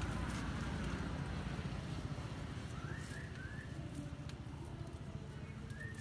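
Leaves and branches of a custard apple tree rustling as a hand pulls at them, over a low steady rumble. A bird gives short chirps about halfway through and again near the end.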